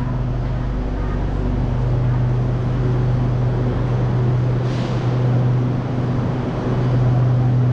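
Steady low mechanical hum over an even rumbling noise, with a brief hiss about five seconds in.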